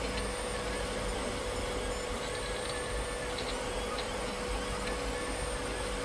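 Desktop 3D printer printing: a steady mechanical hum with a whine held on one pitch, and faint short ticks now and then.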